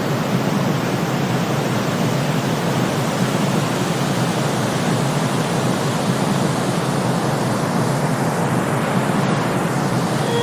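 Steady synthetic noise for sleep: a constant, even hiss with its weight in the low end, without swells or changes.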